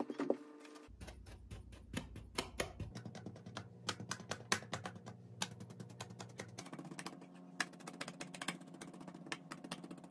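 Metal fork tines pricking rows of holes into kinetic sand: a quick, irregular series of soft crisp clicks and crunches, over a faint steady low hum.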